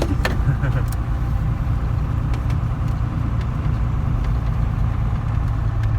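A vehicle engine running steadily: a continuous low rumble, with a couple of faint clicks about a second in.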